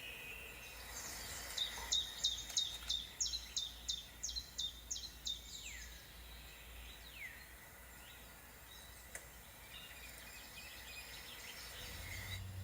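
Songbird singing over a faint steady outdoor hiss. It gives a quick run of about a dozen sharp, high notes, roughly three a second, over about four seconds, then a few separate whistles that slide down in pitch.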